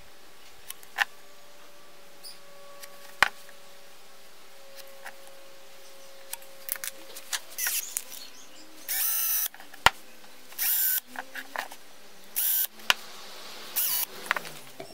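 Hand-held power drill run in four short bursts in the second half, boring the marked centre hole into the end of a wooden blank. Before that, a few sharp clicks and taps of pencil and ruler on the wood.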